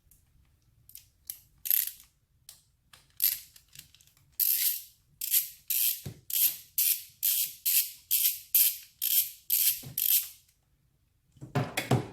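Hand ratchet with a 10 mm socket clicking as it backs out an ignition coil hold-down bolt: a few scattered clicks, then a steady run of quick ratcheting strokes, about two or three a second, that stops about ten seconds in.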